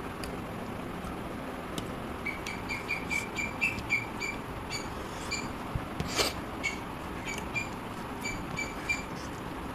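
A run of short, high squeaks, all at the same pitch, about two or three a second, from about two seconds in until near the end, over a steady background hiss, with one sharp click about six seconds in.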